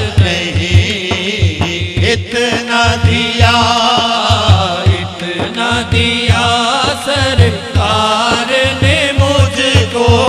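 Devotional naat singing: a man's voice drawn out in wavering, ornamented sung lines without clear words, over a daf frame drum beating about three times a second.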